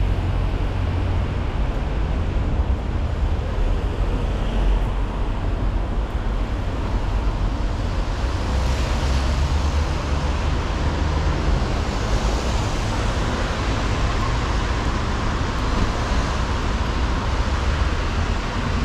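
Steady city street traffic noise with a heavy low rumble, and the hiss of passing cars' tyres swelling about eight and twelve seconds in.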